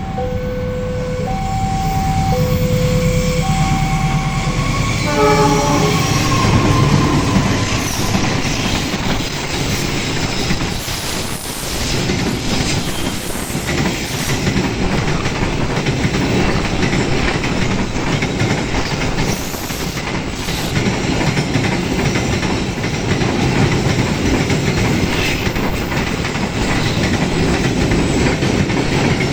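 Level-crossing warning alarm alternating between two tones about once a second, then a short train horn blast about five seconds in as a train reaches the crossing. The train then runs past on the double track, its wheels clattering and rumbling over the rails.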